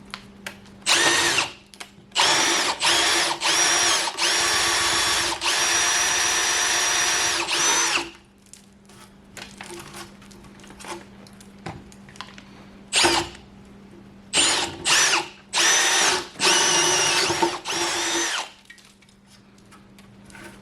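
Electric drill boring a hole through a solid wooden 6x6 timber, run in starts and stops. There is one long run of about six seconds, then several shorter bursts with pauses between them.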